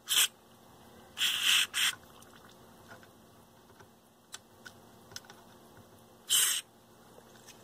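Aerosol can of Caig DeoxIT contact cleaner spraying through its extension straw into the control potentiometers, in hissing bursts: a short one at the start, a longer broken one about a second in, and another near the end. Faint clicks in between.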